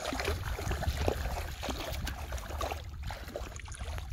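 Bare feet wading and splashing through shallow muddy water, an irregular run of small splashes and sloshes over a steady low rumble.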